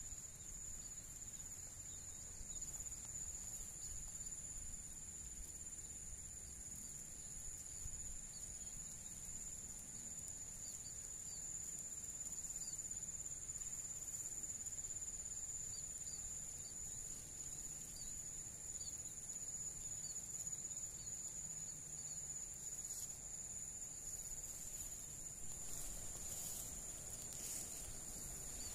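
Insects shrilling steadily in grassland in one high, unbroken tone, with a few faint short chirps over it and some rustling or handling noise near the end.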